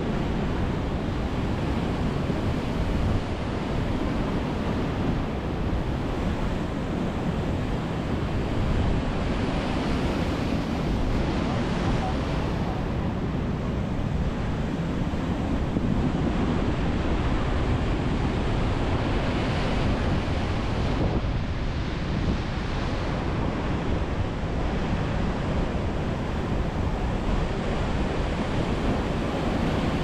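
Sea surf breaking on a pebble beach and against concrete tetrapod breakwater blocks: a continuous deep wash of water, its hiss swelling each time a wave breaks into foam.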